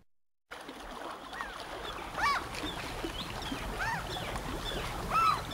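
Lakeshore ambience starting about half a second in: water washing at the shore, with birds giving short rising-and-falling cries every second or so.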